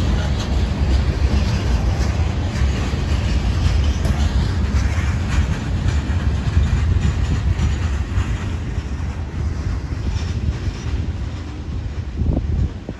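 CSX freight train's hopper cars rolling past: a steady, heavy rumble of steel wheels on the rails that eases slightly near the end.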